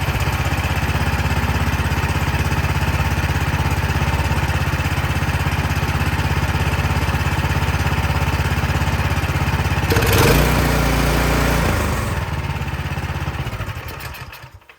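Cub Cadet snow blower engine running steadily on its freshly cleaned carburetor, showing that the dirty carburetor was the cause of the no-start. About ten seconds in it surges briefly, then its pitch falls as it is shut off, and it runs down to a stop near the end.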